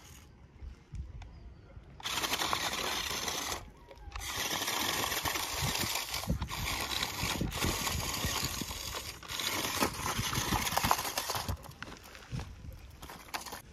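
A toy RC rock crawler's small electric motor and gearbox whirring under load as it crawls over loose rocks, with rocks knocking and clattering under the tyres. The whirring starts about two seconds in, stops briefly near four seconds, then resumes and fades out near the end.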